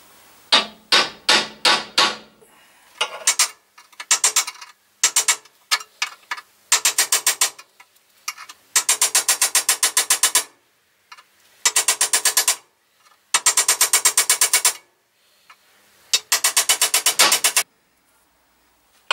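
Ball-pein hammer tapping a centre punch, metal on metal, to peen over the cut-off end of a bolt in a pillar drill's metal cowling. A few single taps come first, then runs of rapid light taps, about ten a second, each lasting a second or so, with short pauses between.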